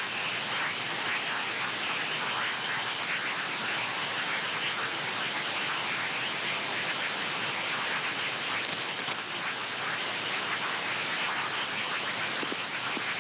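Radio receiver static on a shortwave frequency: a steady hiss with fine crackle, with no tone or voice coming through.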